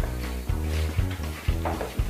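Background music with a steady beat, about two beats a second, over a deep bass line.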